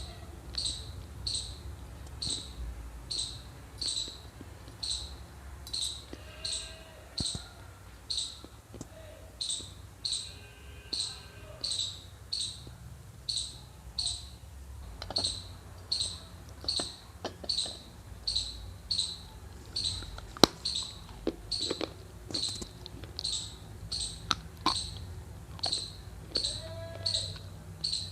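Close-up chewing of dry fuller's earth (Multani mitti), a steady rhythm of about one and a half crunchy chews a second. Sharper crunching snaps come in now and then through the second half.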